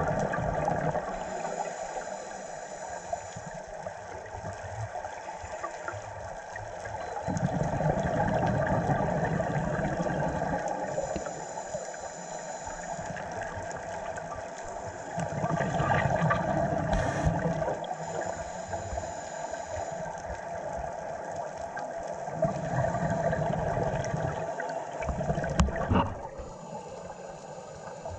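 Scuba regulator breathing heard underwater: a faint inhale hiss and then a long rush of exhaled bubbles, about every seven seconds, four times over a steady underwater hum. A couple of sharp knocks near the end.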